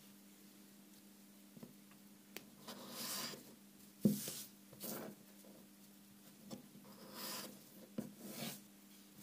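A knife blade scoring and cutting a small sheet of sandpaper: about five short scratchy strokes, with a few light ticks between them.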